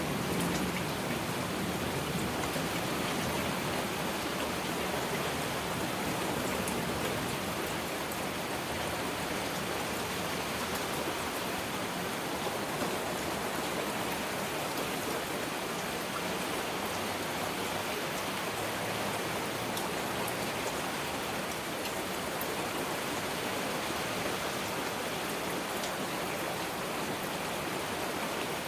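Heavy rain falling steadily, an even dense hiss of drops. The tail of a thunder rumble fades out in the first second.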